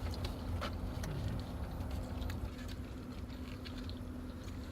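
Eating sounds: chewing and mouth smacking, with a few faint clicks of a fork, over a steady low hum.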